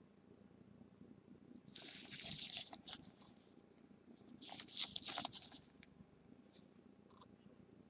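Faint crinkling and rustling of gloved hands turning a hard plastic trading-card case over. There are two bursts, about two seconds in and again just under five seconds in, then a couple of small clicks near the end.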